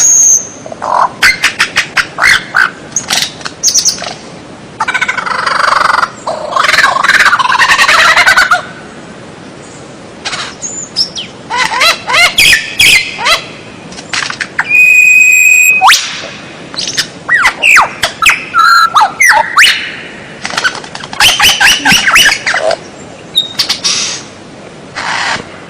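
White-rumped shama (murai batu) singing in loud, rapid, varied phrases: quick sweeping whistles and trills mixed with harsher squawking notes, with one held steady whistle about halfway through.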